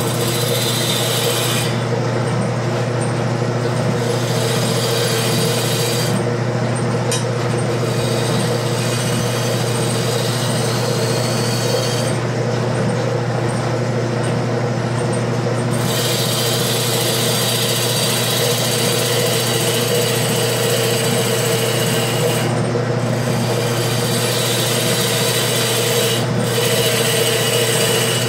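Wood lathe running with a turning tool roughing the outside of a wet mulberry bowl blank. Under the rough, scraping cut the motor hums steadily. The cutting noise breaks off briefly several times, leaving only the lathe's hum.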